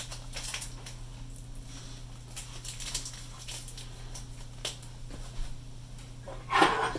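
Faint, scattered clicks of small parts and tools being handled at a workbench while rubber grommets are fitted to a radio's tuning condenser, over a steady low hum. Near the end there is a short vocal sound.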